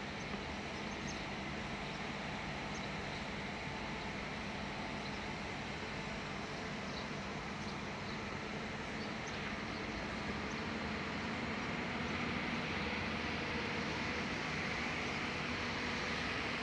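Heavy construction machinery's diesel engine running steadily with a low hum, a little louder in the last few seconds.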